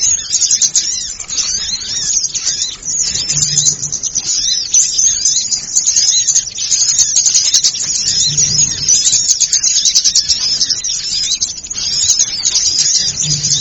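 Dense, continuous chatter of many small birds, with high-pitched chirps and twitters overlapping without a break: an excited small-bird chorus used as a lure call.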